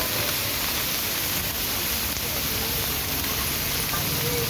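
Whole masala-coated fish sizzling in hot oil on a large flat griddle, a steady hiss of frying.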